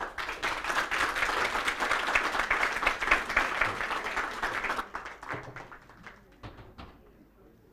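Audience applauding. Full applause for about five seconds, then thinning to a few scattered claps and dying away.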